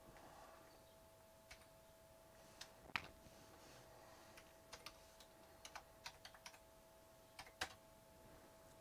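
Faint, irregular clicks of computer keyboard keys being typed in short runs, over a faint steady hum.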